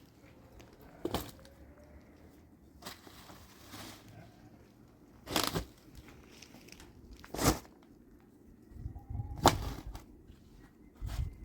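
Four sharp, short knocks a few seconds apart, the last two loudest, over a quiet background.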